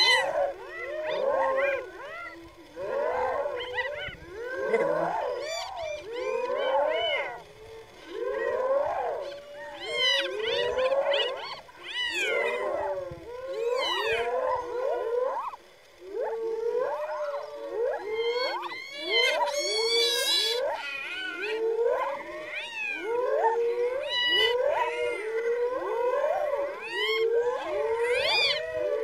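Spotted hyenas calling excitedly as they mob lions at a kill: many overlapping high calls that rise and fall and waver in pitch, one after another with only short gaps.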